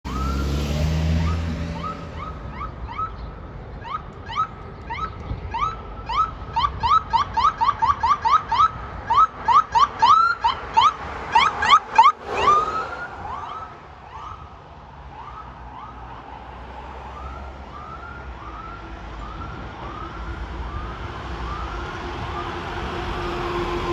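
Electronic siren on a fire chief's Chevrolet Tahoe in yelp mode: quick rising sweeps several times a second, growing loud as the vehicle passes close about twelve seconds in. After that come slower, quieter sweeps.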